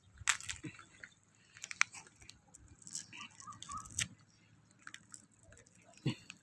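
Green mussel shells crunching and clicking faintly as a hand picks at the clustered mussels on a concrete bank, in scattered short bursts with quiet gaps between.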